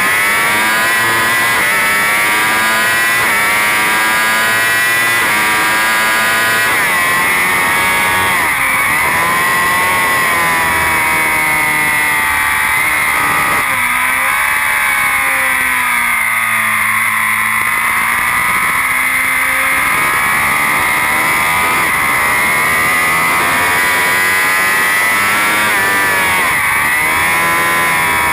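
BMW S1000RR's inline-four race engine under hard acceleration, its pitch climbing through the revs and dropping quickly at each upshift. It falls away as the bike brakes for corners, runs low and slower for several seconds around the middle, then climbs again.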